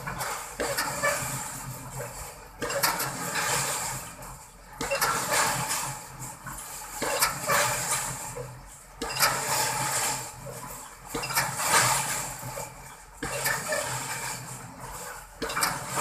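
Pile driver's hammer striking a concrete pile at a steady pace, about one blow every two seconds (eight blows), each a sharp bang that trails off, over the steady hum of the rig's engine.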